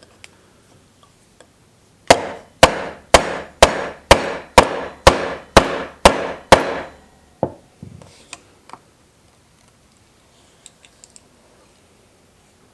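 Mallet striking a mortise chisel into wood, chopping a mortise: about ten heavy, evenly spaced blows, roughly two a second, followed by one softer blow and a few light taps.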